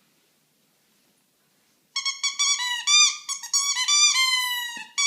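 Shih Tzu whining in a rapid run of short, high-pitched squeaky cries, starting about two seconds in.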